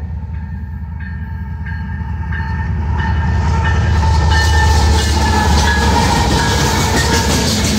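Union Pacific diesel locomotives at the head of a coal train, approaching and passing close by. A deep engine rumble grows louder as the locomotives go by, with a steady whine above it, and wheel and rail noise rises over the last few seconds.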